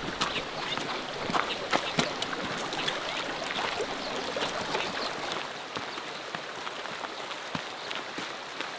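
Water running in a narrow stream channel, with irregular footsteps on a gravel path over it.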